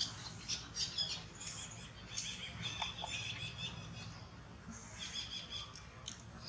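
Birds chirping in the surrounding trees: many short, high chirps and twitters, briefly thinning out about four seconds in, over a steady low background hum.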